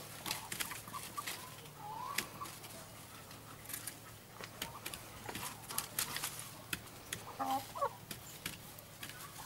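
Hens clucking softly, two short calls, one about two seconds in and another later, over many light clicks and rustles as they peck at the base of a banana plant in dry grass.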